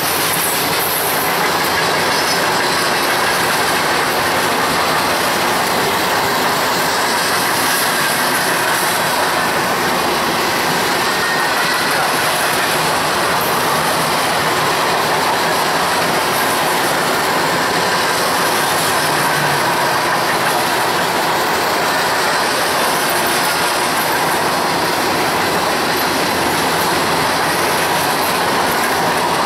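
Kansas City Southern freight cars rolling past on the rails, a steady loud rumble and clatter of wheels on track with a faint high wheel squeal.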